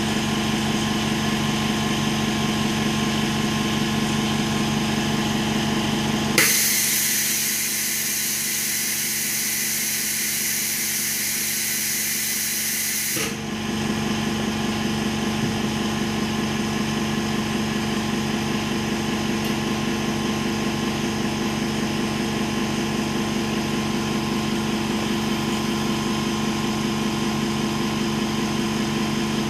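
Steady mechanical hum of a running motor. About six seconds in it drops away and a loud, even hiss starts suddenly and holds for about seven seconds, then cuts off as the hum comes back.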